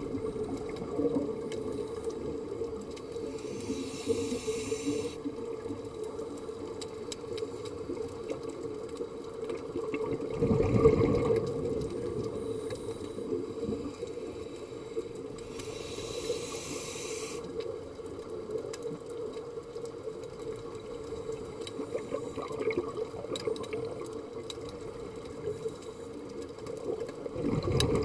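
Underwater sound of a scuba diver breathing through a regulator: slow breaths, with a hiss on each inhalation and a gurgling rush of exhaled bubbles twice, about ten seconds in and at the end. Under it runs a steady hum, with scattered faint clicks.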